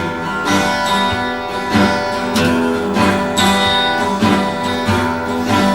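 Acoustic guitar strumming chords in a steady rhythm, an instrumental break between sung verses of a folk song.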